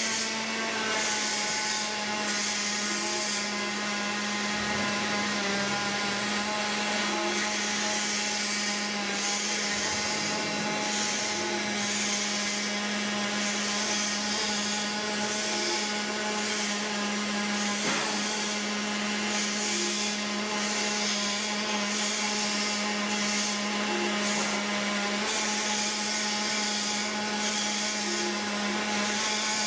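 MIG/MAG welding arc running steadily on a pipe-to-flange joint, a crackling sizzle that dips briefly now and then, over a steady mechanical hum.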